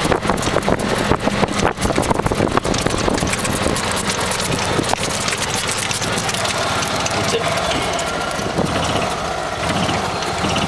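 Golf cart running as it drives across the grass. Dense rattling and bumping for the first few seconds, then smoother, steadier running.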